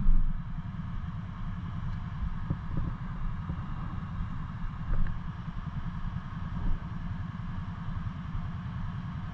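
Kawasaki Brute Force 750 ATV's V-twin engine running steadily, with a few faint knocks.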